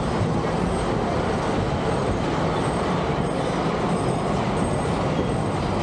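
Passenger train rolling along the track, heard from inside an open-sided coach: a steady, even rumble of the cars running.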